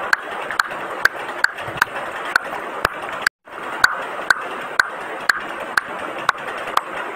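Even ticking, about two sharp clicks a second, over a steady hiss, broken by a brief silent dropout about halfway through.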